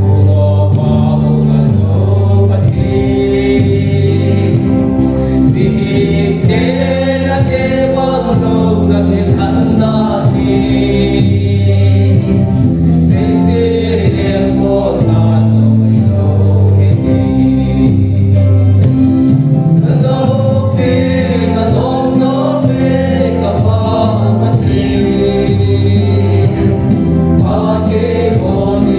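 Gospel song: singing over an instrumental backing with a deep bass line and a steady beat.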